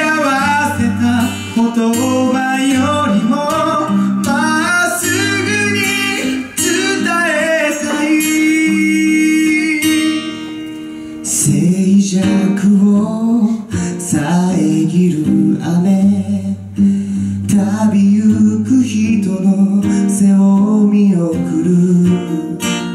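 Live song: a strummed acoustic guitar under a male lead vocal. About ten seconds in, a held note fades and a second male voice takes over the singing.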